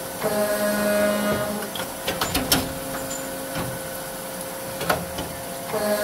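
Tsune TK5C-50GL CNC cold saw running its automatic cut-and-index cycle: a steady machine hum, a pitched whine near the start that returns near the end, and sharp clicks and clanks of the clamp and feed mechanisms in between. The pattern repeats about every five and a half seconds, one part cut per cycle.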